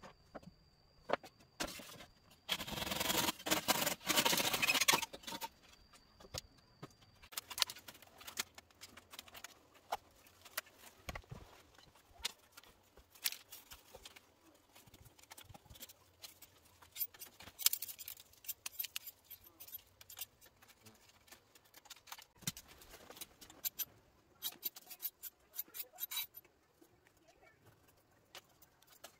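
A bamboo pole scraping across a dirt floor for about three seconds near the start. After it come many small clicks, taps and rustles of thin bamboo strips being threaded and bound through a mat of split bamboo slats by hand.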